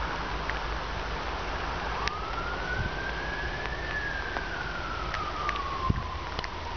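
A siren wailing slowly, its pitch starting about two seconds in, rising, then falling and starting to rise again near the end, over a steady background rush.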